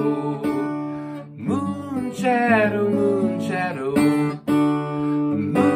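Acoustic guitar strummed, with a man's voice singing a held, wavering melody over it for a couple of seconds in the middle.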